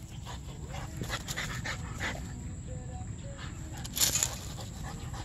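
French bulldog breathing hard and snuffling close by: a run of short breathy sounds, with one louder burst about four seconds in.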